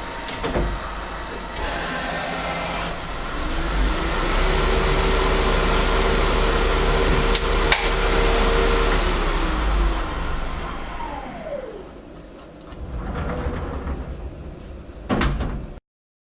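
Small CNC lathe running a ball stud program: steady cutting and machine noise with a spindle whine that holds, then winds down about three quarters of the way through. There are a few sharp clicks, and a last short burst before the sound cuts off near the end.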